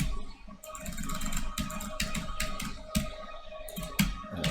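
Computer keyboard typing: an irregular run of keystrokes, a few a second.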